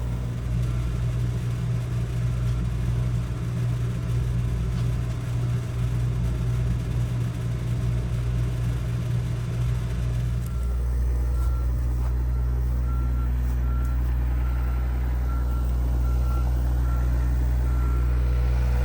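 Heavy construction machine's engine running steadily. About halfway through the engine note changes and a back-up alarm starts beeping in short repeated tones.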